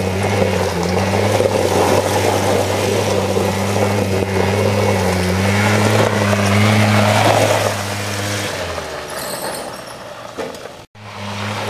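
Small 100cc quad bike engine running at fairly steady revs with slight rises and dips as the quad slides around on gravel. It fades as the quad rides off. About eleven seconds in, the sound cuts out for an instant, then the engine returns close up.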